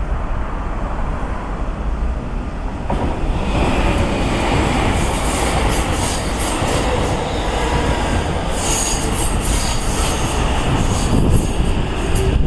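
Keikyu Main Line train passing over a level crossing. Its rumble builds about three seconds in, and high-pitched wheel and rail noise with rapid clattering is strongest about nine seconds in.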